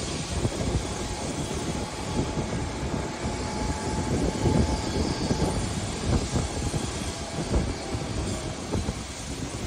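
Lisbon 28E vintage tram running on its rails, heard from inside the car: a continuous rumble full of uneven knocks and rattles from the wheels and car body.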